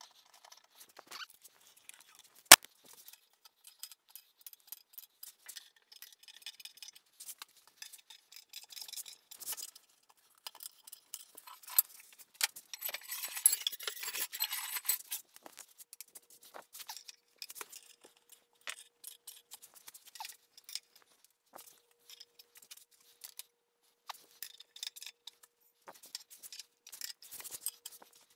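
Wrench clinking and clicking on bolts at the base of a Bridgeport mill: scattered small metallic taps, a sharp click about two and a half seconds in, and a denser stretch of rattling clinks around the middle.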